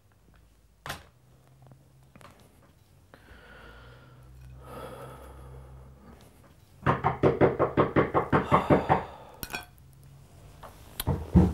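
Rapid, insistent knocking on a door, about seven knocks a second for two seconds, with a few more knocks near the end.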